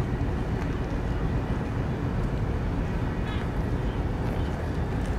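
Steady low rumble of ship engines, even and unchanging, with a few faint ticks above it.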